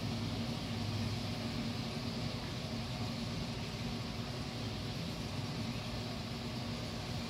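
Steady low hum with an even hiss over it, unchanging throughout, with no distinct clicks or other events.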